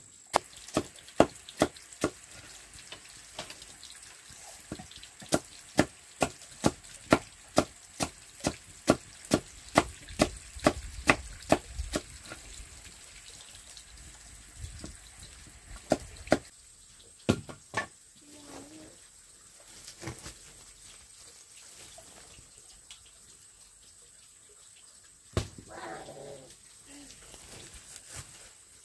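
A knife chopping slices off a white root against a wooden block: sharp, even chops about two to three a second. They stop about twelve seconds in, and a few scattered knocks follow.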